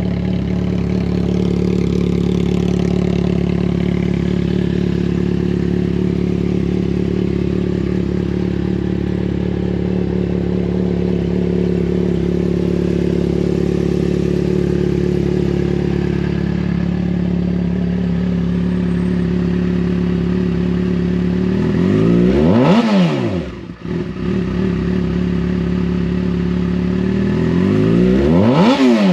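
2009 Yamaha FZ6R's fuel-injected inline-four, through a Two Brothers slip-on exhaust, idling steadily, then revved twice near the end, the pitch climbing sharply and dropping back to idle each time.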